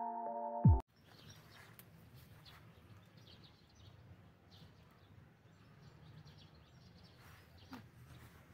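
Electronic music with deep, falling bass notes cuts off abruptly about a second in. After it there is faint outdoor ambience: a low, steady rumble with small birds chirping now and then.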